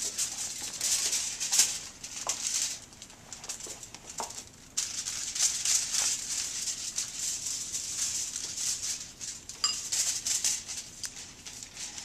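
Sheets of aluminium hair-highlighting foil crinkling and rustling as they are handled against the hair, in irregular crackly stretches with a lull about three seconds in before it starts again suddenly.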